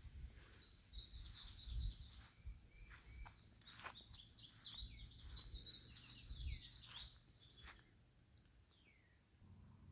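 Wild songbirds singing outdoors: quick runs of high chirping notes repeated over several seconds, fading out about eight seconds in, over a thin steady high tone and a few soft low thumps.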